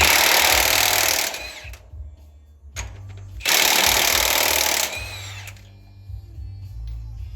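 Pneumatic impact wrench run in two bursts of about a second and a half each, loosening fasteners while the rocker arm is changed on an EMD diesel engine. Background music plays throughout.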